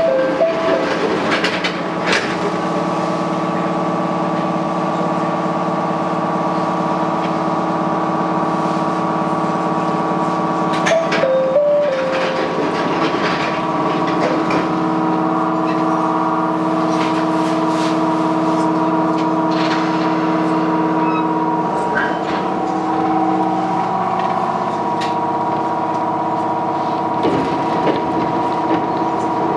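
Chichibu Railway 7500 series electric train running, heard from the front of the train: a steady hum of several even tones with scattered clicks. A brief stepped tone sounds near the start and again about 11 seconds in, and some of the hum's tones drop away around 22 to 24 seconds in.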